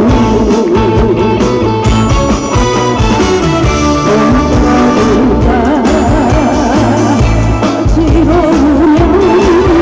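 A woman singing a song live into a microphone over loud backing music, amplified through stage speakers; her held notes waver with vibrato.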